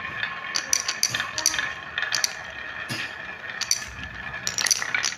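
Marbles rolling along a HABA wooden marble run track, a steady rolling rumble broken by irregular sharp clicks as they hit the track and each other, with a quick cluster of clicks near the end.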